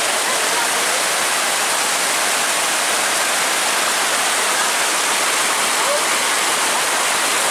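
Muddy floodwater from a sudden downpour rushing fast over flooded ground, a steady loud rush of turbulent water.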